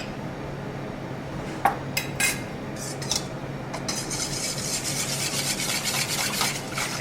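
A few separate clinks of kitchen utensils, then from about four seconds in a fast, continuous stirring of a thin flour, water and oil tuile batter in a bowl.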